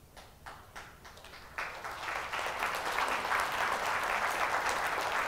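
Audience applause: a few scattered claps, swelling about a second and a half in into full, steady clapping from the whole hall.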